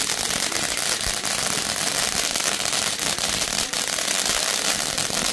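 Several ground fountain fireworks spraying sparks at once: a steady hiss crowded with fast, sharp crackles.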